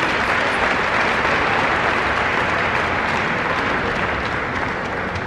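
Arena crowd applauding after a point in a table tennis match, swelling at the start and dying down toward the end.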